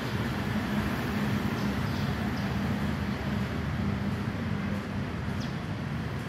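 Steady low rumble of traffic, with a few faint, short, high bird chirps.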